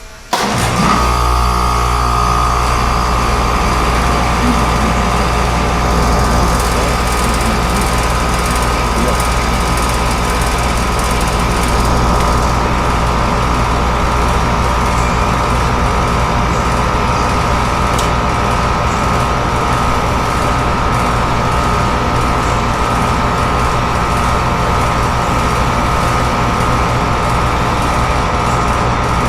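Camera drone's propellers humming loudly and steadily, a high whine over a low drone, cutting in abruptly about half a second in.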